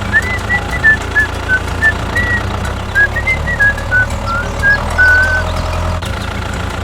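A vehicle engine runs steadily, with a melody of short, high notes over it that ends about five seconds in.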